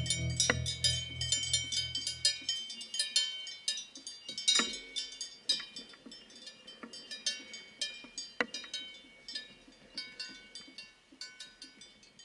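Cowbells on grazing cows clanking irregularly in many overlapping strokes, growing fainter towards the end. Guitar music stops about two and a half seconds in.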